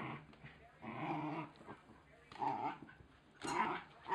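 Wire Fox Terrier puppy growling in short bursts, about one a second, while play-fighting a plush toy.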